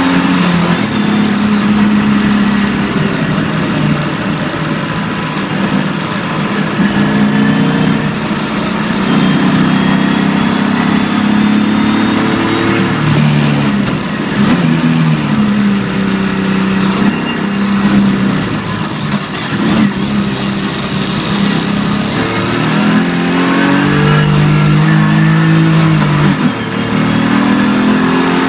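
BMW E46 325ti Compact's 2.5-litre straight-six engine heard from inside the cabin while driven hard, its pitch repeatedly rising under acceleration and dropping as it lifts or shifts, over a steady hiss of tyres and wind.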